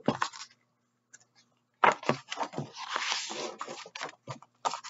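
Paper pages of a picture book being turned and handled: a short rustle, then from about two seconds in a longer stretch of crinkling and flapping paper with small sharp clicks.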